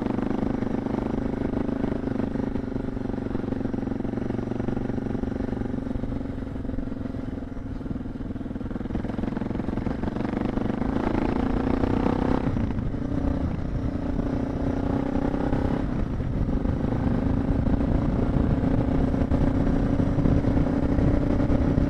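Suzuki DR650's single-cylinder four-stroke engine running steadily as the motorcycle climbs a dirt trail, heard from the bike with low wind and road rumble. The engine note breaks briefly twice, about twelve and sixteen seconds in.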